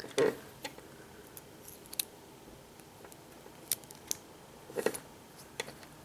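Scattered small metallic clicks and taps, a few seconds apart, from a Schlage lock and lock tools being handled and worked apart by hand.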